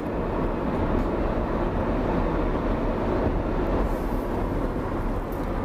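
Steady road and wind noise of a car travelling at highway speed, picked up by a microphone mounted outside the car.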